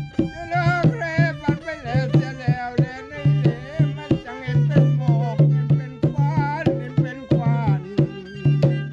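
Rong ngeng folk music: a violin playing a wavering melody with wide vibrato over a conga-style hand drum beaten with the palms, giving deep, ringing low strokes and sharp slaps in a steady rhythm.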